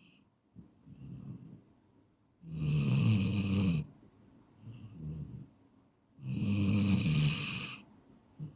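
A person snoring: two loud snores, each about a second and a half long and roughly four seconds apart, with softer breaths between them.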